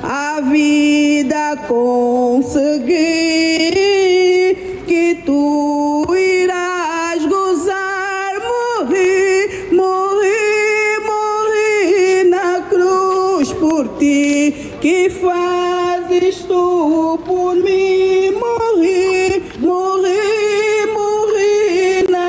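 A solo voice singing a slow melody, with long held notes that waver in pitch.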